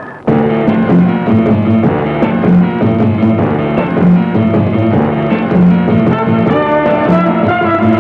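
Rock-style soundtrack music with guitar and drums, cutting in abruptly a moment after the start.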